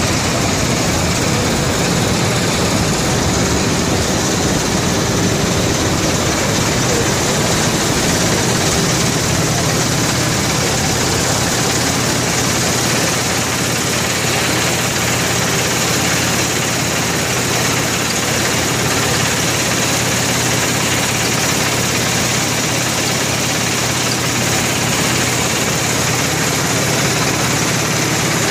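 Sentech PWK 1230 vibrating screen and its belt conveyor running while screening fertilizer: a loud, steady machine hum with a dense hiss of material sifting and pouring, unchanging throughout.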